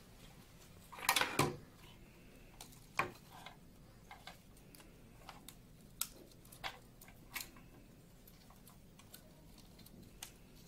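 Plastic splice tray of an optical splitter box being handled while fibre pigtails are routed into it: scattered small clicks and knocks of plastic, with a louder rustling clatter about a second in.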